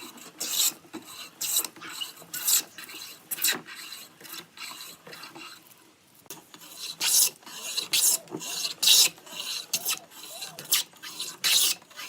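A hand tool working wood in repeated rasping strokes, about two a second, with a brief pause about halfway through.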